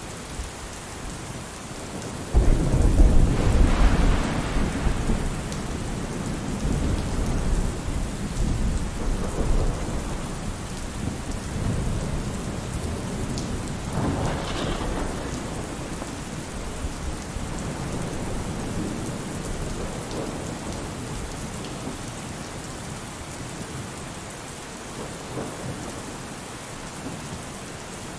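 Steady rain with a rumble of thunder that breaks in suddenly about two seconds in and dies away over several seconds; a softer rumble swells again around the middle.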